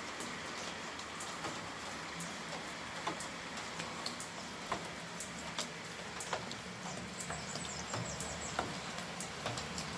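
Steady rainfall hissing, with many irregular individual drops hitting a surface close by as sharp ticks and taps.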